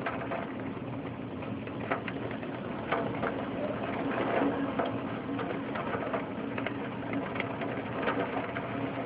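Monsoon rain falling steadily, with many irregular drip and splash clicks from drops striking close by, over a faint low steady hum.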